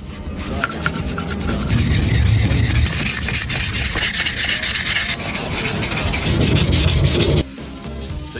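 Abrasive sanding: a rasping rub on a hard surface. It grows louder and steadier about two seconds in, then drops off sharply about a second before the end.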